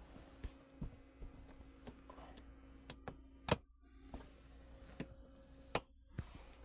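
Plastic push-in retaining clips on a car's under-panel and inner fender liner being pried out with a flathead screwdriver: scattered light clicks and snaps, the sharpest about halfway through and again near the end.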